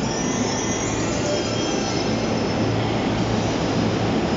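JR East E257 series 2000-subseries electric limited-express train pulling out of the station, its cars running steadily past close by with the noise of wheels on rail and a steady hum.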